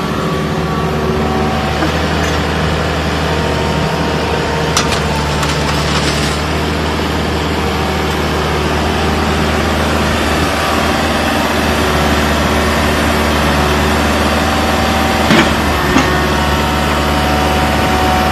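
Kubota KX165 mini excavator's diesel engine running at a steady speed as the machine raises its boom and swings its upper structure. A few short sharp knocks sound, one about five seconds in and two close together near the end.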